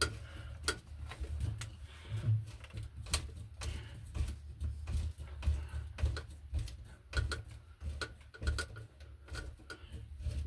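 Small irregular clicks and knocks as a screw is turned to tighten the clamp of an electrical outlet box against the wall.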